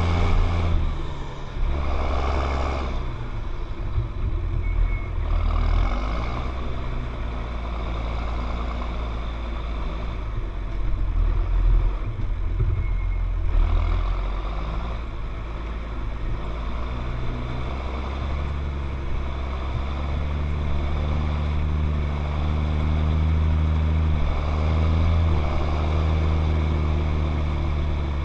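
John Deere 7710 tractor's six-cylinder diesel engine running, its note shifting several times in the first half as engine speed changes, then steadier.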